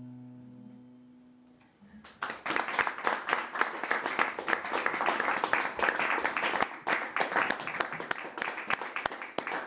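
The song's last acoustic guitar chord rings out and fades over about two seconds, then audience applause starts and keeps going.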